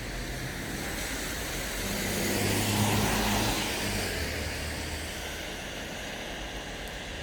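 A road vehicle passes by: its engine hum and tyre noise swell to a peak about three seconds in, then fade away.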